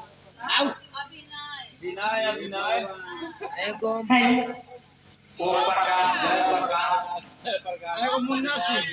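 A cricket chirping steadily, a fast, even run of high pulses, about six a second, beneath people's voices.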